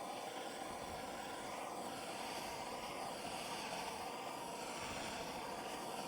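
Small torch burning with a steady hiss, its flame heating the bottom of a can of hydraulic oil.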